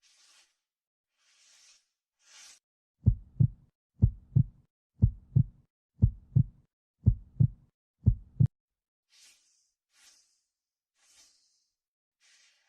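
Heartbeat: six lub-dub pairs of low thumps, about one a second, each the first heart sound (S1) followed by the second (S2), with no murmur or extra sound between them.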